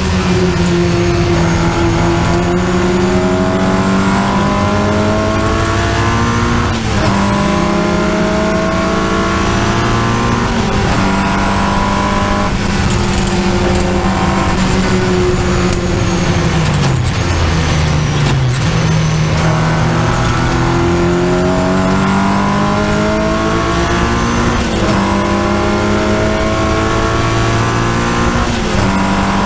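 Triumph Spitfire race car's four-cylinder engine at full racing load, heard on board: the revs climb and drop sharply at each upshift, several times over. Near the middle the pitch sinks for a couple of seconds as the car slows for a corner, then climbs again.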